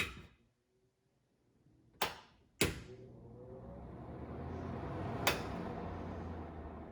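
Two sharp clicks from range hood parts being fitted, then a steady whooshing hum with one more click about five seconds in.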